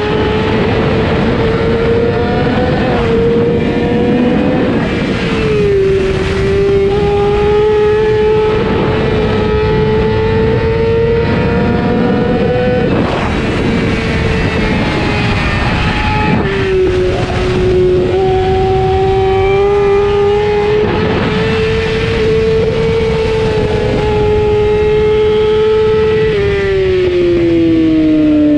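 Onboard sound of a 600cc racing motorcycle engine running high in its revs at racing speed: its pitch dips sharply about five and sixteen seconds in and climbs slowly after each dip, then falls steadily near the end as the bike slows. Heavy wind rush over the microphone runs underneath.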